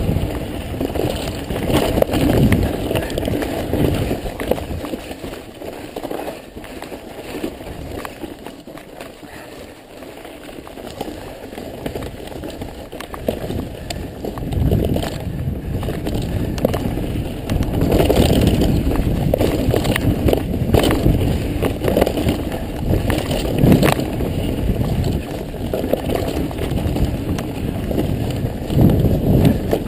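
Mountain bike riding over a rough dirt and rock trail: tyres rolling on dirt, with the bike rattling and knocking over bumps. It quietens for a few seconds about a third of the way in, then grows louder again past halfway.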